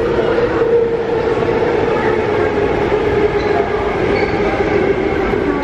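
MTR SP1900 electric multiple unit running alongside the platform: wheel-on-rail rumble under a steady traction-motor whine that falls slowly in pitch as the train moves along.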